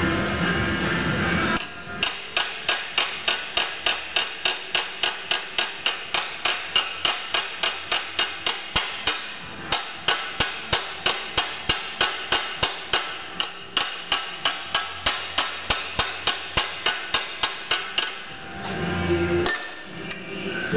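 Rapid, even hammer blows on a sheet-metal cowl repair strip clamped over a phenolic hammer form in a vise, about four a second, each strike ringing briefly. The metal is being hammered down into the form to raise semi-circle reliefs. The hammering pauses once briefly about halfway through and stops a couple of seconds before the end.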